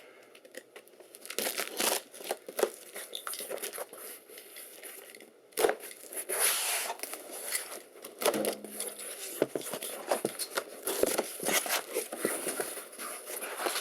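A shipping box being unpacked: bubble wrap, styrofoam and packing tape crinkle and tear in irregular bursts, with a sharp crackle about five and a half seconds in.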